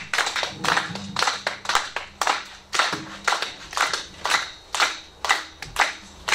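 Audience clapping together in a steady rhythm, about two claps a second, to welcome a speaker to the stage.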